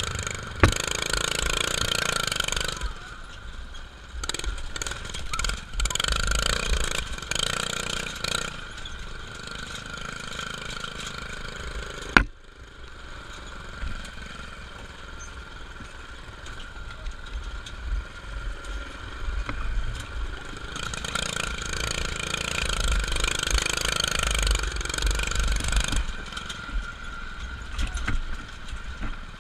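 Yerf-Dog two-seat go-kart's small engine running as the kart drives over dirt, its sound rising and falling with the throttle. Two sharp knocks stand out, one just after the start and one near the middle.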